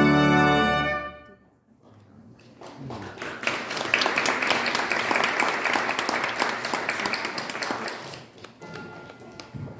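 Organ and two trumpets release a held final chord about a second in, and it rings away in the church's reverberation. After a short gap the congregation applauds for about five seconds, then the clapping dies away.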